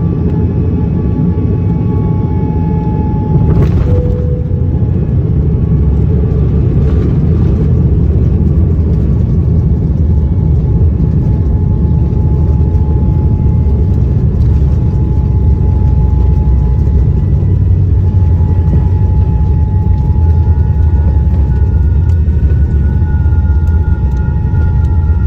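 Cabin noise of a Boeing 787-9 landing: a loud, steady low rumble, with a sharp thump about three and a half seconds in as the wheels touch down, then the continuing rumble of the landing roll.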